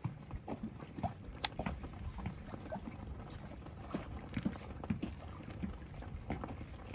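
Faint scattered clicks and rustles of dive-harness straps and plastic buckles being fastened and adjusted at the chest, with one sharper click about a second and a half in, over a low steady background rumble.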